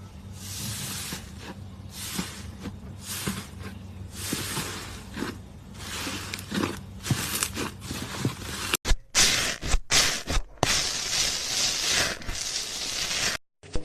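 Slime being squeezed and pressed by hand, crackling and crunching in quick irregular bursts, typical of crunchy slime. The sound cuts off abruptly a few times.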